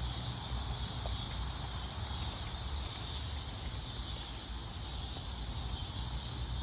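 Steady, unbroken chorus of insects shrilling in a high band, over a low rumble.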